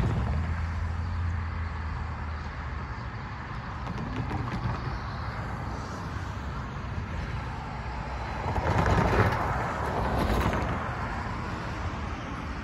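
Road traffic passing on a busy street, with a low steady engine hum in the first few seconds and one vehicle passing close and louder about nine seconds in.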